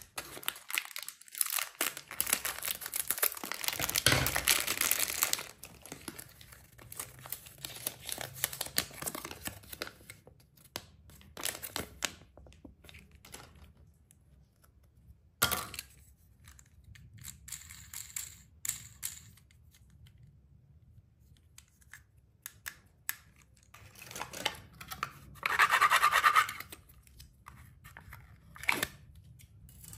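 Plastic candy-toy wrappers crinkling and tearing open, with scattered clicks from small plastic toy pieces being handled. Near the end, a louder tearing noise of about a second and a half as a Lickables tub's lid is opened, then a single click.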